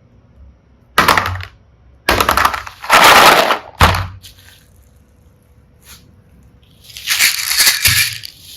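Small plastic mini-heart and seashell charms crackling and rattling as hands scoop and press through them. There is a short burst about a second in, a cluster of bursts from about two to four seconds in, and a longer one near the end.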